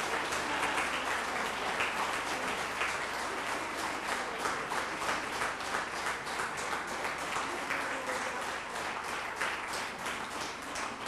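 Audience applauding; the dense clapping slowly thins and grows quieter toward the end, leaving more separate individual claps.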